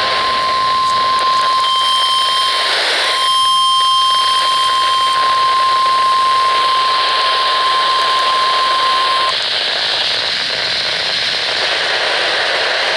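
Emergency alert warning tone for a severe thunderstorm warning: one steady, piercing single-pitch tone (the NOAA Weather Radio warning alarm) over radio static hiss. The tone breaks briefly about three seconds in and cuts off about nine seconds in, leaving the hiss.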